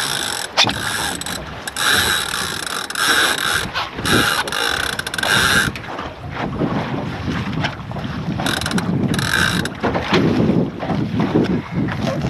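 Finn dinghy under sail: water rushing along the hull and wind on the microphone, with repeated buzzy stretches of line running through ratchet blocks as the sheet and control lines are hauled in.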